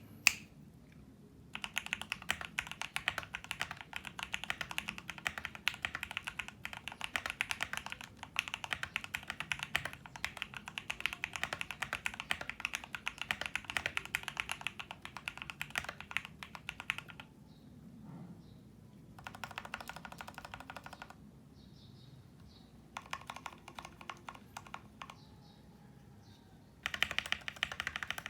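Typing on a custom Tofu60 mechanical keyboard: lubed Gateron Milky Yellow Pro linear switches on a polycarbonate plate in a foam-dampened aluminium case, with Cherry profile keycaps. A sharp click at the start, then a long run of fast typing for about fifteen seconds, followed by three shorter bursts of keystrokes separated by pauses.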